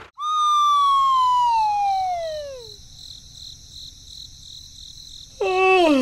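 Cartoon-style falling-whistle sound effect: a single clear tone sliding steadily down in pitch for about two and a half seconds. Near the end a second pitched tone comes in, holds briefly and then starts sliding down as well.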